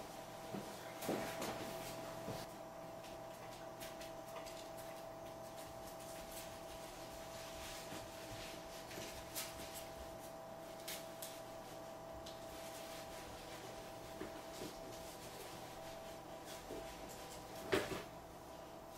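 A golden retriever rooting in a kitchen trash can: faint scattered rustles, scrapes and clicks of garbage being nosed about, over a steady hum. A sharper knock comes near the end.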